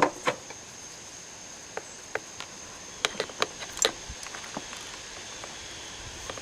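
Scattered small clicks and taps of a chainsaw's fuel line and parts being handled as the line is pulled through the hole in the tank, a few coming close together about three seconds in.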